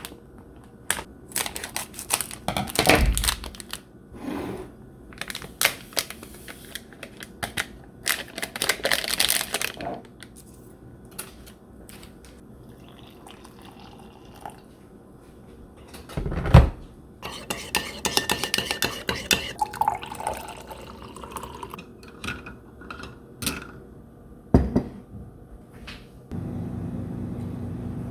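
Kitchen clatter of dishes and utensils: scattered knocks and clinks, the loudest a single knock about halfway through. Near the end a tap starts running steadily.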